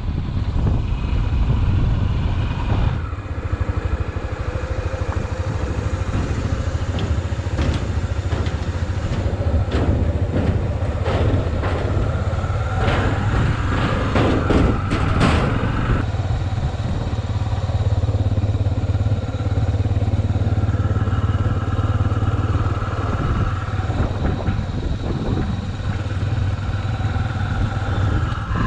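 Motorcycle engine running steadily while riding, with wind rushing over the microphone. Around the middle comes a run of sharp clattering knocks as the bike rolls over a steel bridge deck, stopping abruptly.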